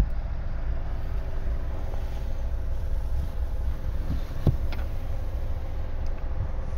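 Steady low rumble of wind on the microphone. About four and a half seconds in come a couple of light knocks as the boot floor panel is lifted by its pull loop.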